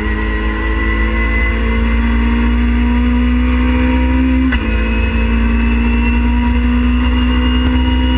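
Race car engine at full throttle inside the cockpit, its pitch climbing as it revs to about 7,500 rpm in third gear. About halfway through there is a quick upshift to fourth with a brief click, the pitch drops, then climbs steadily again.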